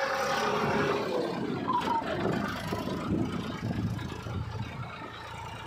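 Massey Ferguson 246 4WD tractor's diesel engine running under load as it pulls a soil-laden trolley through mud, fading as the tractor moves away.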